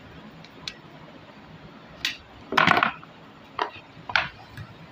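Vivo Y33s cardboard phone box being handled and opened on a desk: a few scattered taps, knocks and scrapes, the loudest about two and a half seconds in.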